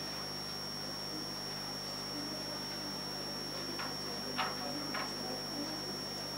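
Room tone: a steady electrical hum with a thin high whine, and three soft clicks between about four and five seconds in, the middle one the loudest.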